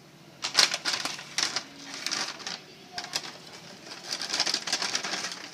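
Metallised plastic chips packet crinkling and crackling in irregular clusters as it is opened and a hand reaches inside.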